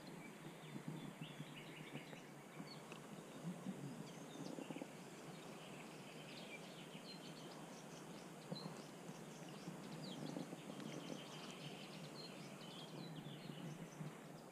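Quiet outdoor background with faint birdsong: many short chirps and calls scattered throughout.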